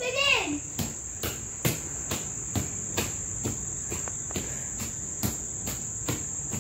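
Crickets trilling steadily, with a sharp tick repeating evenly about twice a second.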